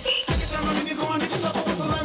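Dance music with a strong, regular drum beat, played over the sound system.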